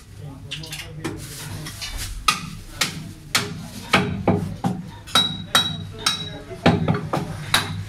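Butcher's meat cleaver chopping meat on a wooden chopping block: a run of sharp chops, about two a second, starting about two seconds in.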